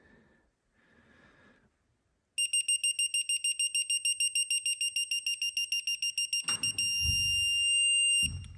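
Craftsman digital torque wrench beeping rapidly, about nine high beeps a second, as the bolt is turned through its angle. It then switches to one steady beep for about a second and a half, the wrench's signal that the 110-degree target angle has been reached.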